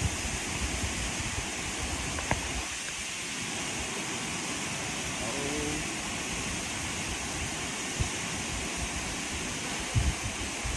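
Steady rushing roar of a waterfall, with a few low thumps of wind buffeting the microphone.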